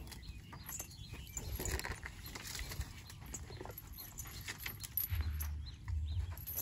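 Asian elephants walking on a dirt track and through grass: scattered soft footfalls and rustling, with low rumbles from about five seconds in.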